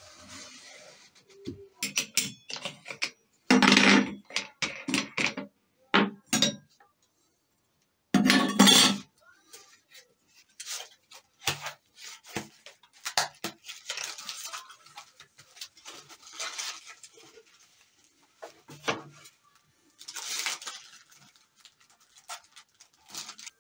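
Several loud knocks and clatters of tools handled on a wooden worktop in the first nine seconds or so, then the rustle and crinkle of cardboard and plastic packaging with small clicks as a new toothed saw disc for an angle grinder is unwrapped.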